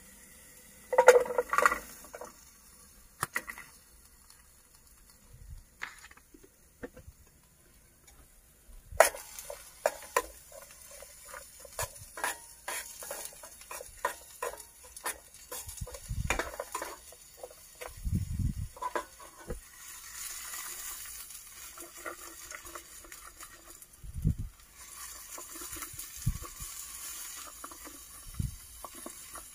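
Cooking handling sounds: a run of irregular clicks and knocks of utensils and cookware, with short stretches of sizzling in a pan in the second half.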